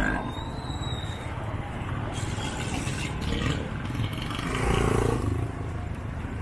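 Busy street traffic, motorcycles and cars running past with a steady low rumble. It swells louder about five seconds in as a vehicle passes close.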